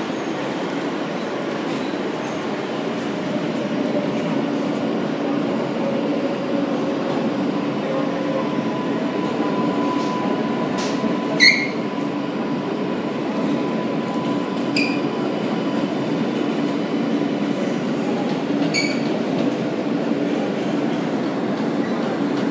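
Inside an R143 subway car, the train running with its steady rumble and motor hum, pulling past a station platform. A few short, high wheel squeaks cut in about halfway through and again later.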